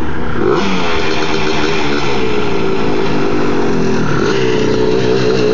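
Suzuki LT250R quad's two-stroke single-cylinder engine running hard close by, its pitch rising and falling as the rider works the throttle.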